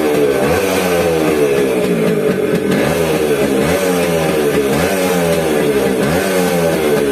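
Modified Suzuki Max 100's two-stroke single-cylinder engine, fitted with a Yamaha RX100 silencer, revved up and dropped back about once a second. This is the bike's "RX beat" exhaust note.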